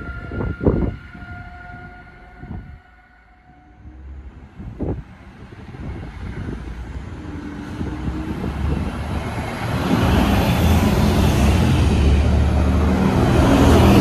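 A DSB IC3 diesel multiple unit approaching, its engines and wheels on the rails growing steadily louder until loud from about ten seconds in. Before it, the clicks and rumble of a departing train fade to near quiet.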